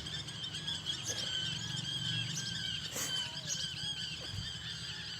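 A flock of small birds chirping and twittering together in a dense, continuous chatter of short, high calls. There is a single brief click about three seconds in.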